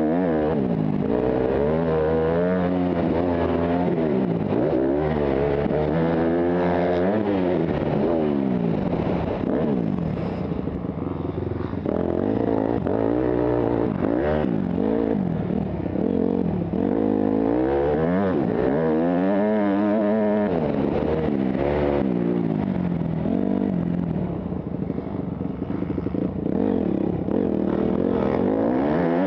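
Motocross bike engine ridden hard around a dirt track, its pitch repeatedly climbing as the throttle opens and dropping back for shifts and corners. Heard from the rider's helmet.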